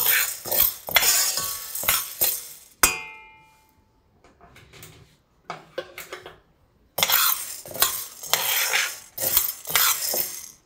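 Whole dry mung beans stirred and scraped around a stainless steel pan as they dry-roast, rattling against the metal. A single sharp clink that rings briefly comes about three seconds in, then it goes quieter with a few light clicks before the stirring resumes about seven seconds in.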